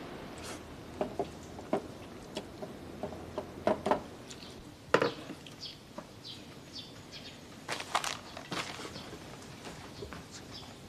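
Small clinks and knocks of dishes and chopsticks at a meal table now and then, the loudest about five and eight seconds in, with a few faint bird chirps in the middle.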